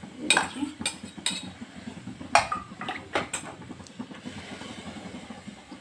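Wooden spatula stirring and scraping a masala gravy in a stainless steel kadhai, knocking sharply against the pan several times in the first three and a half seconds, over a steady sizzle from the cooking gravy.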